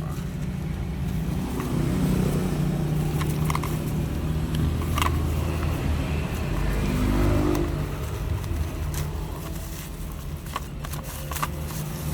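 Plastic packaging of a drill bit set being handled, with scattered sharp clicks and crackles, over a steady low hum.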